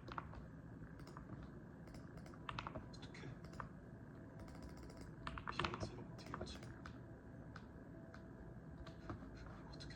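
Typing on a mechanical keyboard: keystrokes clatter in irregular runs, with the busiest, loudest flurry about halfway through.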